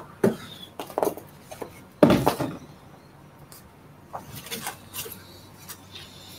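Paper instruction sheet being handled and unfolded, with a few short knocks and rustles from the cardboard kit box being moved. The loudest knock comes about two seconds in, followed by softer rustling and ticks.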